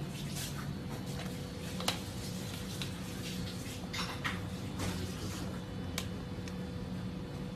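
Ladle stirring in a large stainless-steel stockpot of stew, with scattered light clinks and a sharper knock of metal against the pot, over a steady low hum.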